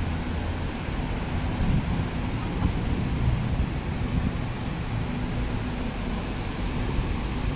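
Steady low rumble of city street traffic, cars and taxis passing, with a brief high-pitched squeak about six seconds in.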